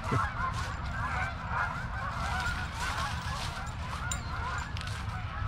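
A flock of Canada geese honking, many calls overlapping without a break.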